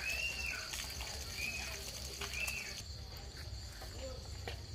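Night insect chorus: crickets trilling steadily at a high pitch, with a faster pulsing layer that stops about three seconds in. A short call that rises and falls sounds three times over the first three seconds, with a few light knocks.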